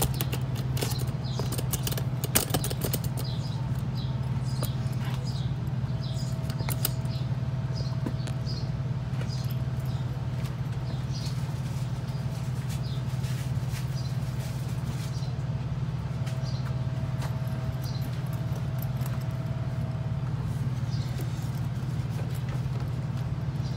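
Small clicks and rustles of hands fitting a fabric cover over a master cylinder reservoir cap, over a steady low hum. The clicks are thickest in the first several seconds and grow sparse after that.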